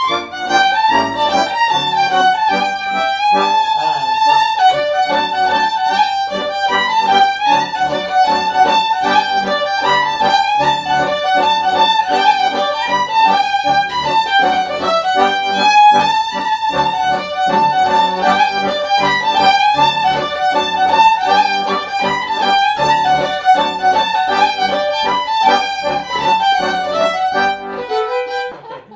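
Violin playing a lively Hungarian folk tune: a quick, ornamented melody over a steady rhythmic chordal accompaniment beneath it, the piece ending just before the close.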